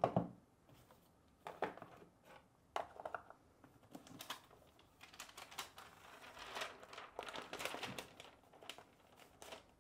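Cardboard and plastic packaging being handled: faint rustling and crinkling with light taps and clicks, and a longer stretch of rustling about four seconds in as a laptop in its protective film is slid out of its box.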